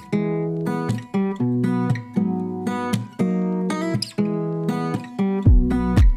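Background music: strummed acoustic guitar chords changing about every half second, with deep bass notes joining near the end.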